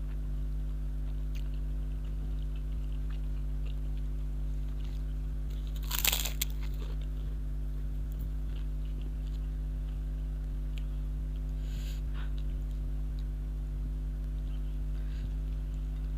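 Close-up eating sounds: one loud crunchy bite about six seconds in, with quieter chewing and small mouth clicks around it, over a steady low electrical hum.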